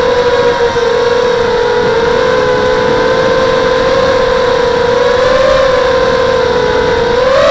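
Brushless motors and 5x3 propellers of an FPV quadcopter (SunnySky X2204 2300KV motors) whining steadily in flight, picked up by the onboard camera. The pitch wavers a little with throttle and rises slightly near the end.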